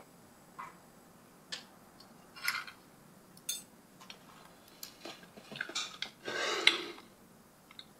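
Knife and fork clinking and scraping on a dinner plate: a scatter of light clicks and short scrapes, the longest and loudest a little past six seconds in.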